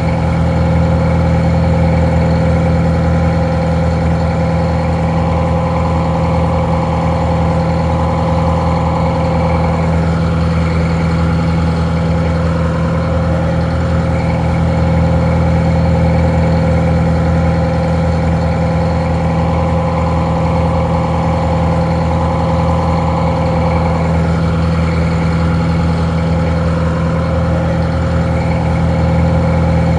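Detroit Diesel 4-71 two-stroke inline four-cylinder diesel idling steadily.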